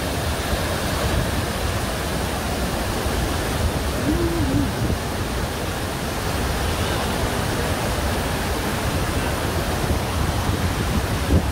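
Iguazu Falls' waterfalls and the river below them: a steady, even rush of falling water.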